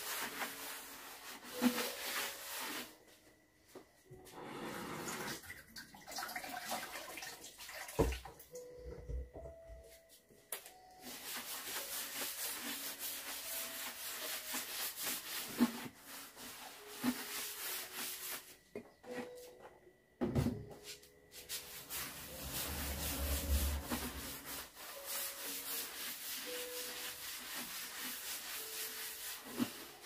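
Wet sponge scrubbing a wooden butcher-block countertop, a rapid rubbing scrape in long stretches, broken by a few sharp knocks of things being handled.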